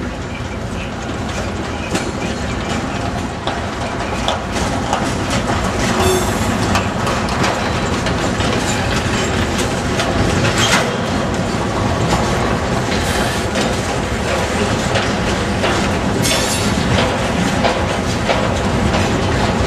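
Freight train cars rolling past on the rails, a steady loud rumble of wheels with a few sharp clacks.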